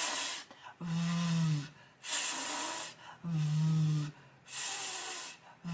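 A woman's voice alternately holding a voiceless "fff" hiss and a voiced "vvv" buzz, each stretched out for about a second, three times over: a pronunciation drill contrasting the English F and V sounds.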